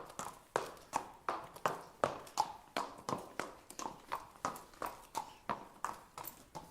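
A horse walking, its hooves clip-clopping on the ground in a steady rhythm of nearly three sharp hoofbeats a second.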